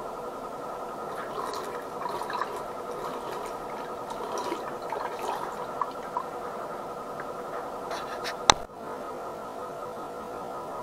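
Steady hum with a few faint scattered ticks, and one sharp click about eight and a half seconds in.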